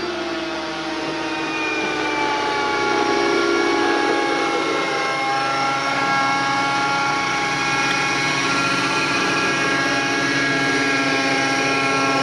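Two-stroke O.S. MAX-55HZ glow engine and rotors of a JR Propo Vibe 50 NEX RC helicopter running at high head speed in flight, a steady high whine. Its pitch dips slightly in the first second, then holds steady while the helicopter hovers low.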